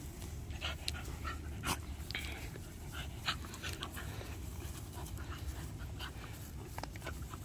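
Two dogs play-wrestling, panting, with many short, scattered sharp noises from the tussle over a steady low rumble.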